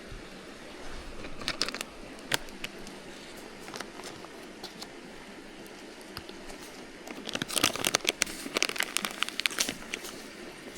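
Crinkling, crackling handling noise. Scattered sharp clicks, then a dense flurry of crackles from about seven and a half seconds in that lasts a couple of seconds.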